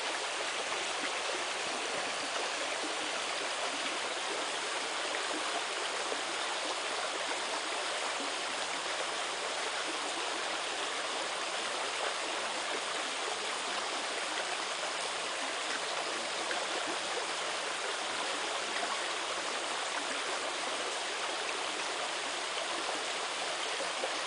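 A creek flowing, a steady, even rush of water.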